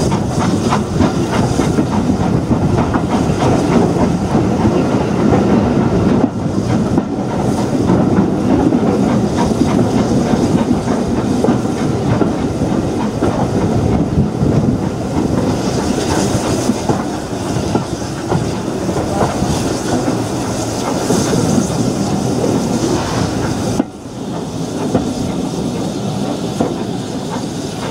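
Steam-hauled heritage train running, heard from an open carriage window: wheels clattering over the rail joints under a steady rush and hiss of steam and moving air. The level dips briefly about 24 seconds in.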